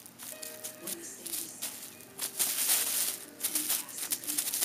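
Plastic bubble wrap crinkling and rustling in irregular bursts, loudest about halfway through, with faint music in the background.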